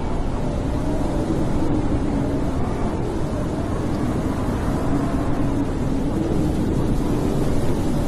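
Snowstorm wind blowing steadily: a low, even rushing with a faint howl that wavers slowly up and down in pitch.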